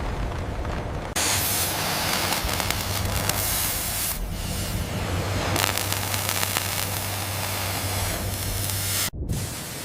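Loud rushing spray of sea water with a steady low hum underneath. It comes in abruptly about a second in and cuts off sharply near the end.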